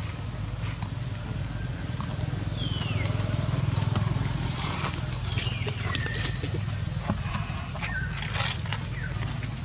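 Outdoor ambience: a steady low rumble with many short, high chirping calls that fall in pitch, thickest in the middle, and a few sharp clicks.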